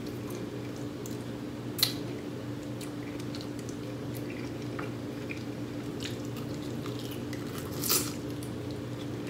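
Chewing and wet, squishy mouth sounds of a man eating fried chicken, with two sharp clicks, about two seconds in and a louder one near the end, over a steady low hum.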